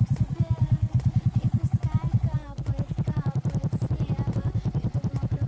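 Single-cylinder four-stroke 125 cc moped engine idling through a straight-through (прямоток) muffler, giving a steady, rapid putter of even exhaust pulses. It dips briefly about two and a half seconds in.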